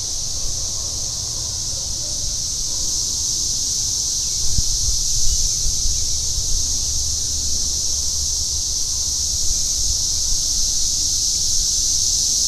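A steady, high-pitched chorus of insects droning without a break, with a low rumble underneath.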